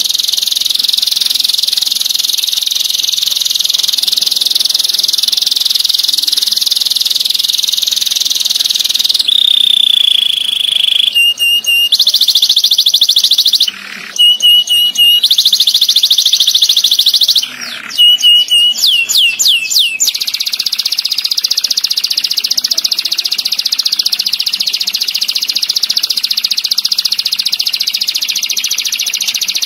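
Domestic canary singing long, rapid rolling trills. The song has brief pauses and a held gliding note near the middle, and a run of quick falling notes about two-thirds of the way in, before the trill resumes.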